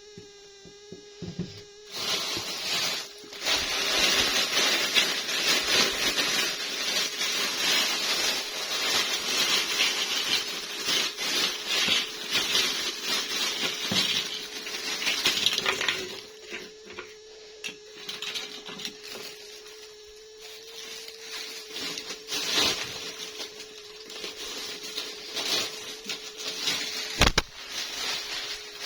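Plastic toy packaging being handled and opened: dense crackling and rustling for the first half, then scattered crinkles and clicks, with one sharp click near the end. A faint steady hum runs underneath.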